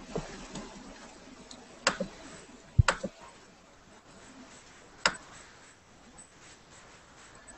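A handful of separate clicks at a computer, spaced a second or two apart, the loudest about three seconds in, over a faint steady hiss.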